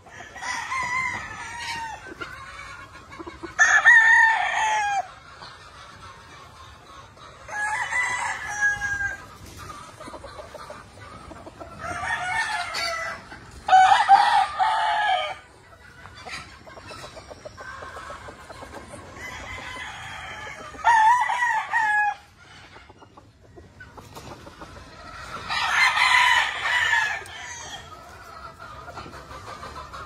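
Gamefowl roosters crowing one after another, about eight crows of a second or two each. Some are close and loud, others fainter and farther off.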